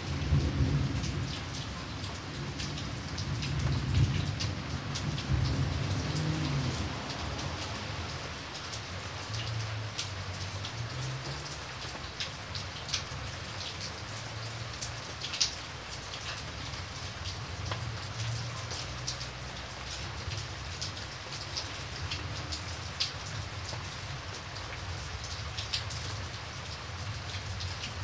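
Steady heavy rain with scattered sharp drop hits. A low rumble of thunder under the rain is strongest over the first several seconds and dies away, with fainter rumbles returning later.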